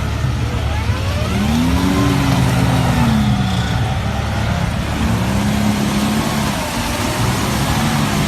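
Off-road vehicle's engine running hard, its pitch rising and falling twice as the throttle is worked, over a steady wash of noise.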